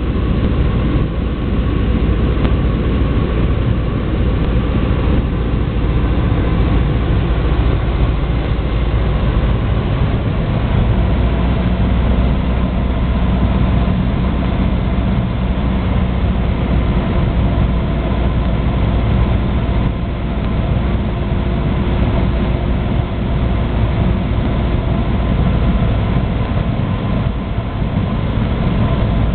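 Light aircraft's engine and propeller running in a steady, loud drone heard from inside the cabin during the landing approach, its note shifting lower about ten seconds in.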